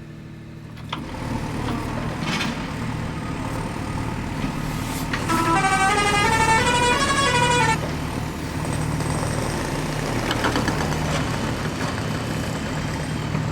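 Toy construction vehicle's electronic sound effects: a steady engine hum, with a short stepped electronic tune about five seconds in that lasts a couple of seconds and is the loudest part.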